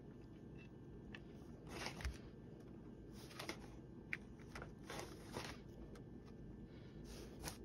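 Faint, scattered rustles and small taps from hands handling a taped cardboard panel and a hot glue gun.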